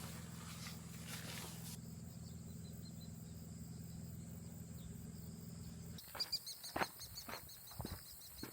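A steady low hum, then an abrupt change about six seconds in to outdoor night sound: insects chirping rapidly and a run of sharp clicks or crackles.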